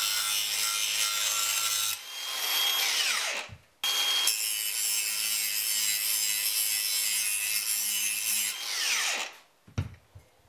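Makita cordless angle grinder grinding sheet steel, throwing sparks. About two seconds in it is switched off and winds down with a falling whine. A second later it starts again to grind a chamfer on a steel strip, then winds down the same way near the end, followed by a few light knocks.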